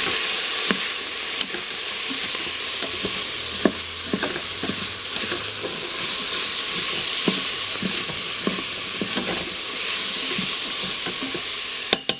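Vegetables sizzling in hot oil in a Cosori pressure cooker's stainless steel inner pot on its sauté setting, with a utensil stirring them and clicking against the pot now and then. The sizzle cuts off near the end.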